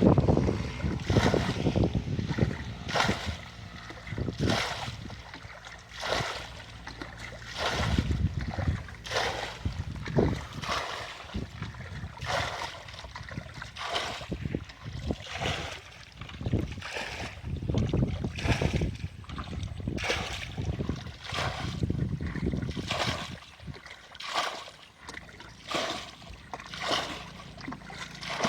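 Water splashing in a series of short strokes, roughly one a second.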